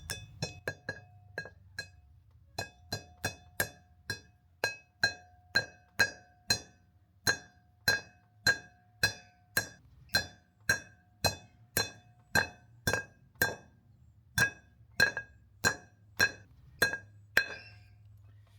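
Hammer striking metal, driving a new wheel bearing cone into a caravan hub: a few light taps, then steady ringing blows about two a second, worked side to side so the cone seats evenly without jamming.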